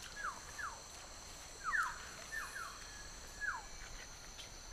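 Forest birds calling: short whistled notes that slide down in pitch, about seven of them, many in close pairs, over a steady high-pitched drone.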